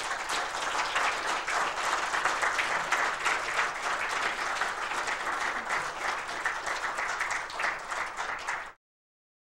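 Audience applauding: a dense, steady patter of many hands clapping, which cuts off abruptly near the end.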